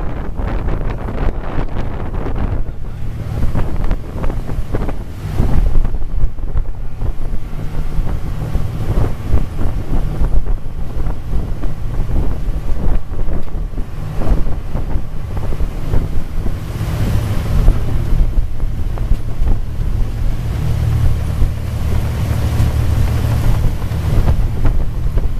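Fishing boat's engine running with a steady low drone under wind buffeting the microphone, with irregular knocks and clatter of gear on deck. The drone grows stronger about two-thirds of the way through.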